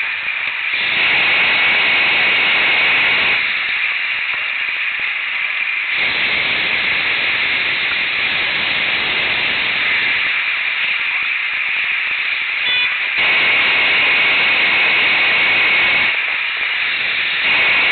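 Hot-air balloon propane burner firing in four blasts of about two to four seconds each, a loud hissing noise switching on and off, with a fainter steady hiss between blasts.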